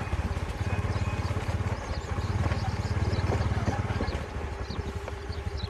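Wind buffeting the microphone outdoors: a low, fluttering rumble that eases off near the end.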